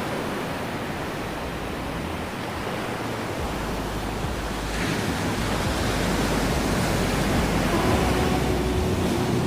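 Ocean waves washing on a beach, a steady rush of surf that swells slightly about halfway through. A few faint steady tones come in near the end.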